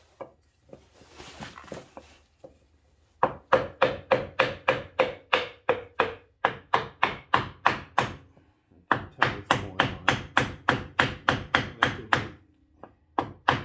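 Hammer blows on a wooden block held against a 1996 Yamaha Big Bear 350's front brake drum, tapping the drum onto the hub over newly adjusted brake shoes. The blows are rapid and even, about three to four a second, in two runs with a short pause between them.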